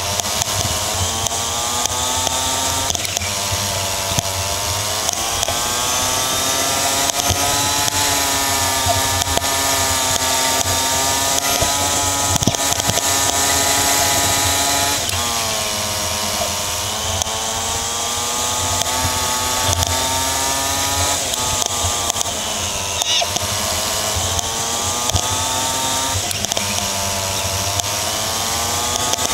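Go-kart engine at racing speed, recorded from on board over a steady hiss. Its pitch climbs gradually along the straights and drops sharply several times as the kart slows for corners, about 3, 15 and 23 seconds in, then builds again.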